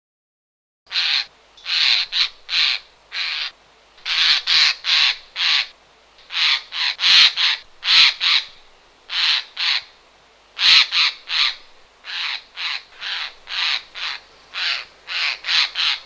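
Eurasian jay screeching: about two dozen short, harsh calls, often in quick pairs or threes, starting about a second in.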